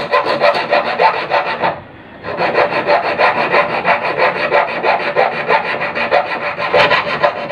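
Hand file rasping on a stainless steel fish hook in quick, even back-and-forth strokes, about eight a second, with a short break about two seconds in. The file is shaping the hook's barb.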